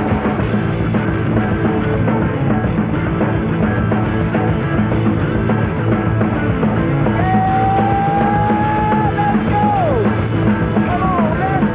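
Rock theme music, starting abruptly and loud. A little over halfway through, a lead line comes in over it, holding long notes that slide down at their ends.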